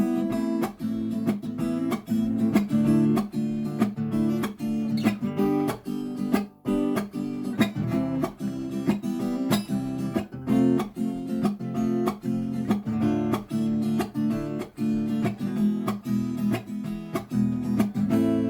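Instrumental music led by a strummed acoustic guitar, rhythmic chord strums.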